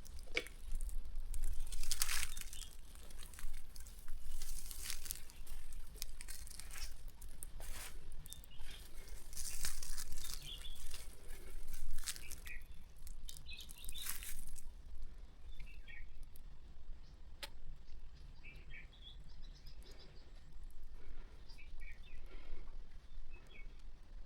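Rustling and crackling through about the first half, typical of someone creeping quietly through dry vegetation, with birds chirping now and then throughout.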